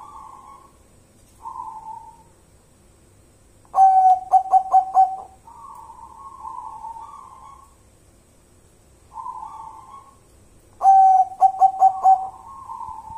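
Zebra dove (perkutut) cooing: softer drawn-out coos with two loud phrases about four and eleven seconds in, each a quick run of short staccato notes, about five a second.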